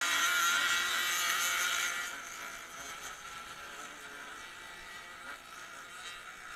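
Off-road motorcycle engines buzzing under throttle, close to the camera. The sound is loudest for about the first two seconds, then drops to a lower steady drone.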